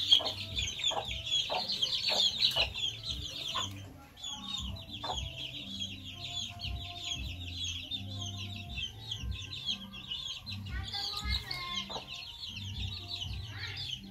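A flock of young chicks peeping without a break, many short high chirps overlapping, louder for the first four seconds. A run of light knocks sounds under the peeping near the start.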